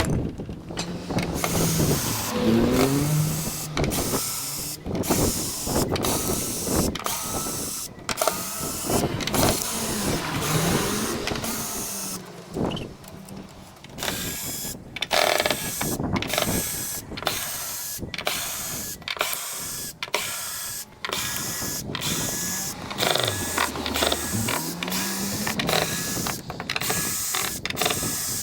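Wooden shutters being taken down and dismantled: irregular knocks and clatter of wood and metal, with a few slow rising and falling whines.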